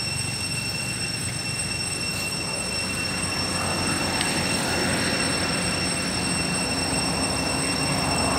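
Steady high-pitched insect drone: a few unchanging whining tones over a hiss that grows a little louder about halfway through.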